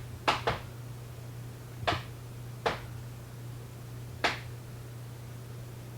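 Five sharp plastic clicks and taps from handling a small eyeshadow compact while swatching it: a quick pair near the start, then single clicks about two, nearly three and four seconds in, over a steady low hum.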